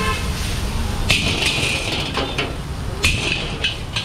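Metal spatula scraping and clanking against a wok as noodles are stir-fried: a long scrape about a second in, then a run of quick sharp clanks, over a low steady rumble.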